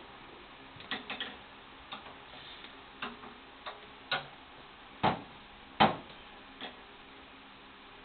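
Scattered sharp clicks and knocks, about ten in all, the loudest about five and six seconds in: parts of a GS-X pinsetter's rear roller assembly being handled and set into place, its all-thread dropped into its hole and its bearing seated on the frame upright.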